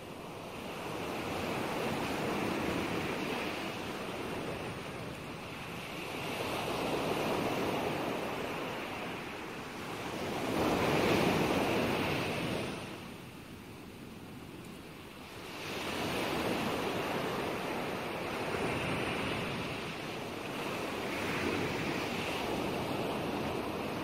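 Sea waves washing in, the surf swelling and ebbing every few seconds in a steady rushing noise, the loudest swell about halfway through.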